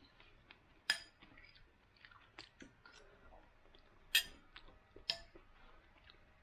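A person eating a meal: faint chewing with scattered small clicks, and three sharper clicks about one, four and five seconds in.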